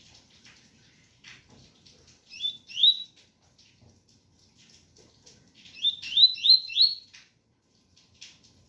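Double-collared seedeater (coleiro) singing its 'tui-tui' song: two short rising whistled notes about two and a half seconds in, then a quick run of four about six seconds in, with faint scattered chips between.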